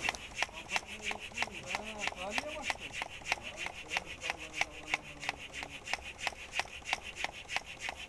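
Hand air pump worked in quick, even strokes, several a second, each stroke a short rasping rub. It is pumping air into a natural gas pipe installation to pressurize it for a leak-tightness test.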